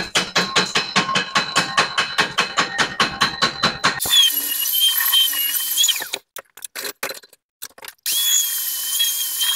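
Hand tool scraping and knocking slag off a freshly stick-welded seam on a steel pipe, in fast even strokes of about seven a second. About four seconds in, this gives way to a small power tool running with a high whine for two seconds; it starts again near the end.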